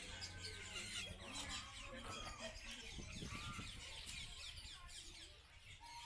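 A faint chorus of aviary birds, many quick high chirps and calls overlapping.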